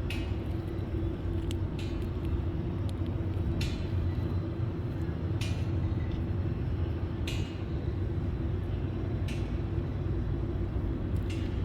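Steady low rumble of an Amtrak diesel locomotive, with a sharp click repeating about every two seconds.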